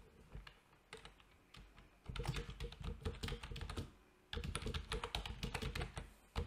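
Computer keyboard typing: a few scattered key clicks, then two quick runs of keystrokes, each about two seconds long, with a short pause between them.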